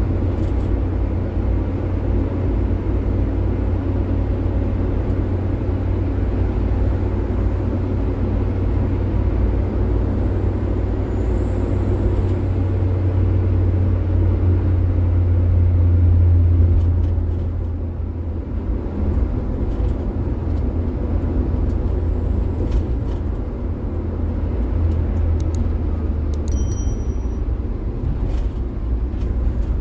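Daihatsu Gran Max running on the road, heard from inside the cab: a steady low engine and road rumble that swells slightly, then drops back about seventeen seconds in. A brief high chirp sounds near the end.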